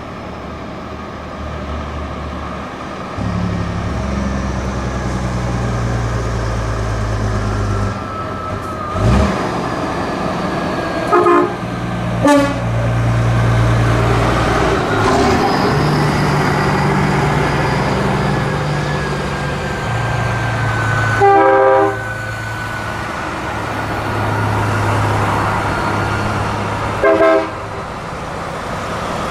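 Road traffic with heavy trucks' engines running and passing by, the low engine note rising and falling as each vehicle goes past. Short vehicle-horn toots sound four times, the one about two-thirds of the way through the longest.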